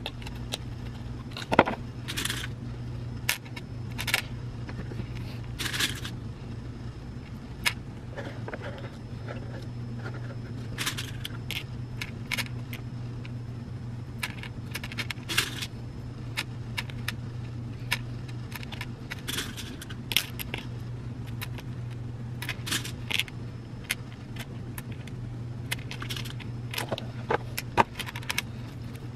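Plastic pony beads clicking and rattling against each other and an acrylic tray as they are picked up and threaded onto elastic cord, in irregular scattered clicks. A steady low hum runs underneath.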